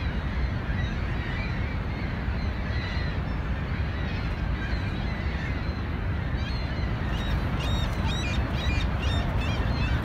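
Steady roar of the Niagara River's rushing rapids, with many birds giving short, high calls in quick succession during the last few seconds.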